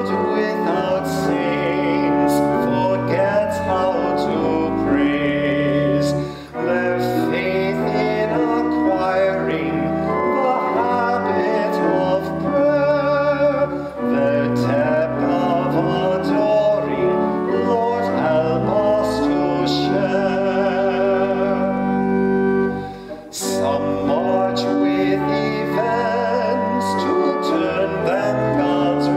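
A congregational hymn sung with vibrato over keyboard accompaniment, running on through a verse with brief pauses between phrases.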